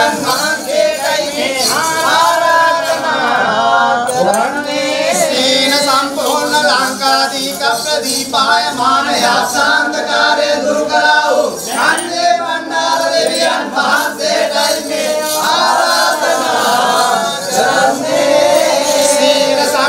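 Men's voices singing Sinhala shanthikarma kavi, the ritual verses of a Kandyan Waliyak Mangalya, together in long, gliding melodic lines.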